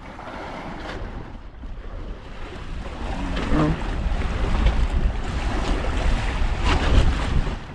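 Wind buffeting the microphone over the wash of the sea around a fishing boat. The rumble grows stronger about halfway through.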